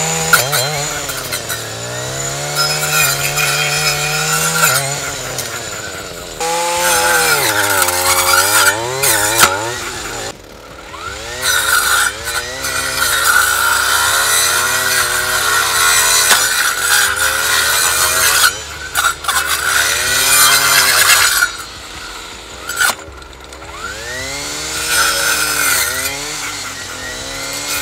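Echo SRM-225 two-stroke trimmer engine revving while the circular saw blade on its head cuts into logs. The engine note sags and recovers over and over as the blade bites into the wood, with several brief let-offs between cuts. The blade cuts really well.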